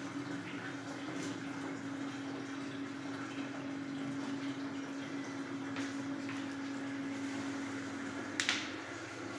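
Steady rush of running water with a low hum that stops near the end, and one sharp click shortly before that.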